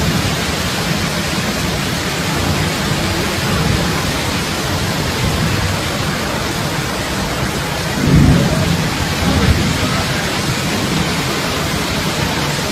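Fast-flowing floodwater rushing along a street: a loud, steady rush of water noise, with a brief low rumble about eight seconds in.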